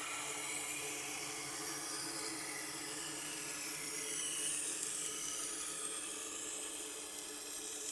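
A Victorinox knife blade being ground on a motorised sharpening wheel, a steady hissing grind over the low hum of the machine's motor, while the edge is being reprofiled on the coarse grit.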